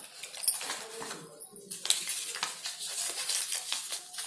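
Stiff chart paper rustling and crinkling as a folded card is handled, a cut strip pulled away and the card folded, with irregular sharp crackles throughout.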